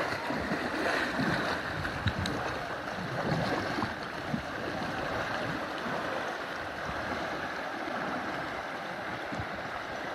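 Steady rush of river current, with small waves lapping around the kayak the recording is made from.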